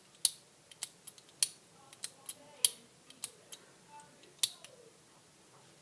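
Slide switch of an old lamp socket being worked back and forth by hand, giving a series of sharp clicks about one or two a second: the switch being tested to check it still works after reassembly.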